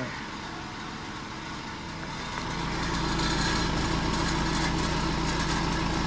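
Hyundai i20's exhaust, through a freshly fitted aftermarket HKS-style muffler tip. The engine is idling, then from about two seconds in it runs louder at raised revs and holds steady, a test of whether the new tip makes the exhaust note louder.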